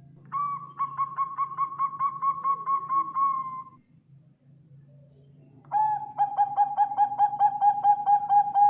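Zebra dove (perkutut) singing its rhythmic cooing song: a quick run of about four clipped notes a second lasting about three seconds, then after a pause of about two seconds a second, slightly lower-pitched run that carries on.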